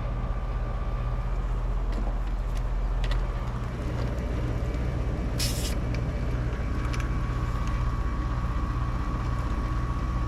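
5-ton Lennox air-conditioning condenser running with a steady low compressor and fan hum. About five and a half seconds in, a short hiss of refrigerant escaping as a gauge hose is uncoupled from a service port.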